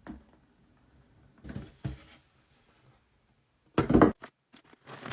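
Hair dryer box being handled and opened: a few soft rustles, then one loud brief rip or scrape a little under four seconds in, followed by quick crinkling and clicking of packaging.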